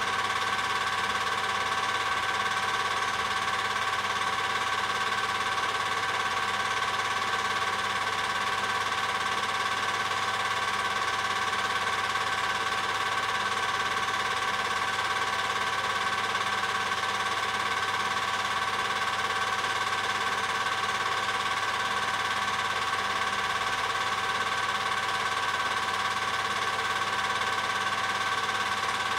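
A steady mechanical drone with several held tones over a hiss, unchanging in level throughout.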